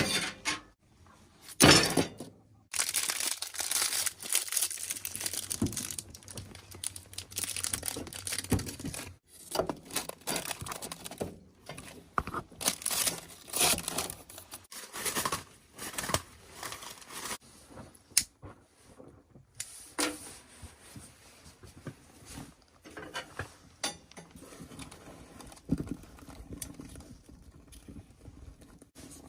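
Irregular crunching, tearing and crackling of dry twigs being snapped and kindling handled while a wood stove is laid and lit.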